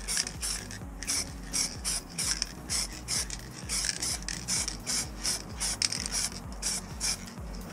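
Aerosol spray-paint can: a rapid, uneven run of short, sharp hissing clicks, several a second, over a steady low hum.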